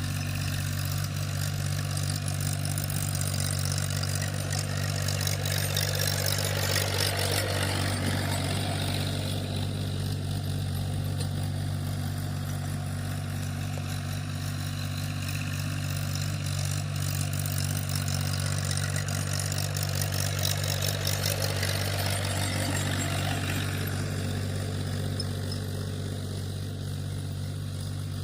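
Tractor engine running steadily while ploughing a field, growing a little louder twice, about a quarter of the way in and again about three quarters of the way in.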